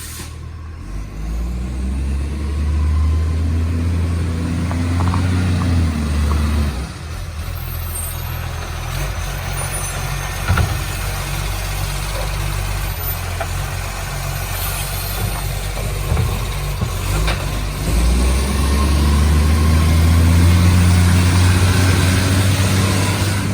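Garbage truck's diesel engine, which has an exhaust leak, revving up over several seconds, dropping back suddenly, running steadily, then revving up again near the end. A single sharp click about ten seconds in.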